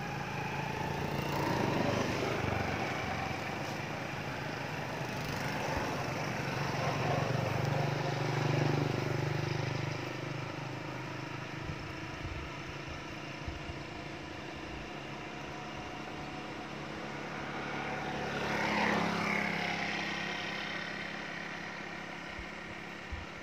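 An engine running with a steady low hum. It swells a few times, most clearly about nineteen seconds in, as if something motorised passes close by.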